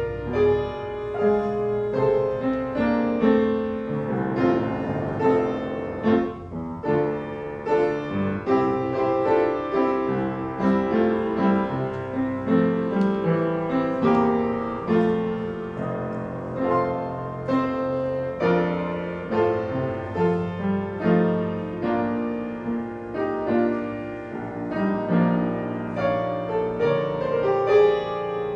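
Piano music: a continuous flow of struck notes and chords.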